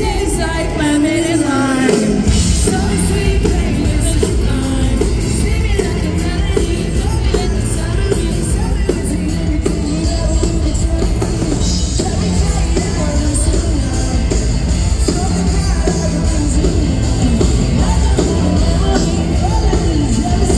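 Live pop-rock band playing in an arena, a lead singer over drums, bass and guitar through the PA, recorded from the audience with the hall's echo. The bass and drums drop out for a moment near the start and the full band comes back in about two seconds in.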